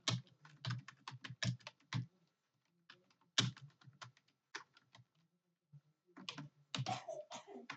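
Computer keyboard typing: quick, irregular key clicks in runs, broken by two short pauses.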